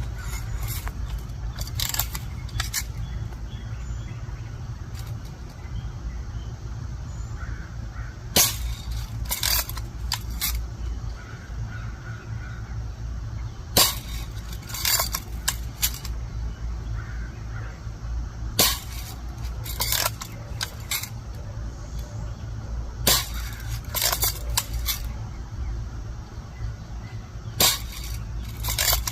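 BB gun firing at a plastic toy truck: about five sharp shots, one every four to five seconds, each followed by a quick cluster of shorter clicks and knocks.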